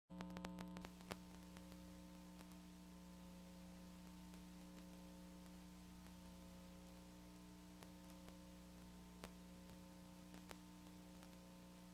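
Near silence: a faint steady electrical hum from VHS tape playback, with a few faint clicks in the first second and two more near the end.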